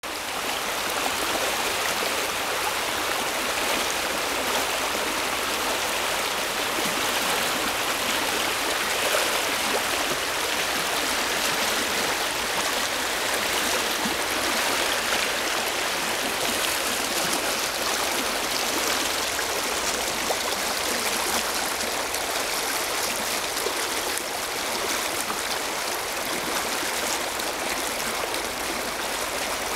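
Shallow, fast brook rushing over rocks in a steady rush of white water.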